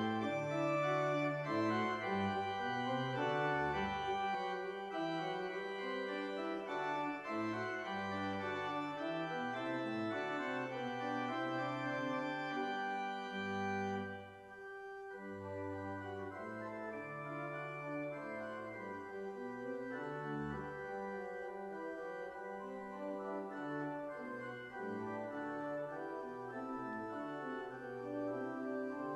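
Church organ playing the postlude, the closing voluntary of the service: held chords over a moving bass line. About halfway through it dips briefly and carries on softer and less bright.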